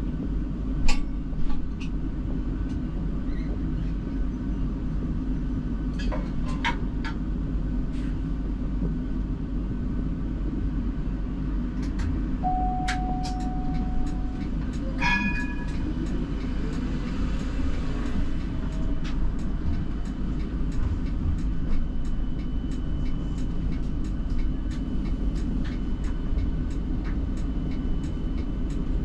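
Siemens Combino tram running, heard from the driver's cab: a steady low rumble with scattered sharp clicks and knocks. About halfway there is a short held tone, then a brief ringing tone, followed by a faint rising whine.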